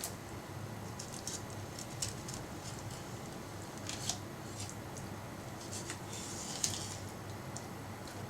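Light food-preparation handling noises: scattered short clicks and scrapes, the strongest about four seconds in and again near the end, over a low steady hum.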